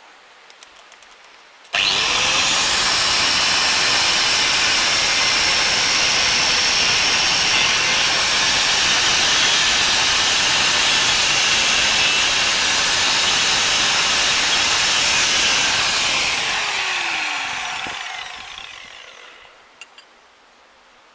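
Angle grinder starting abruptly about two seconds in and grinding steadily at a broken-off bolt in an MTZ-80 tractor's housing for about fourteen seconds, then switched off and spinning down with a falling whine.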